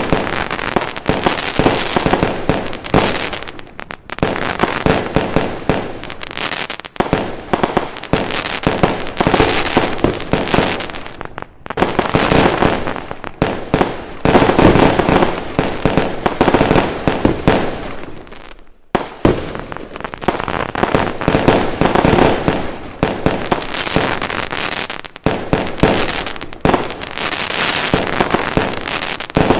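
Fireworks going off in a dense, continuous barrage of rapid bangs and crackling, with short lulls about four, seven, eleven and eighteen seconds in.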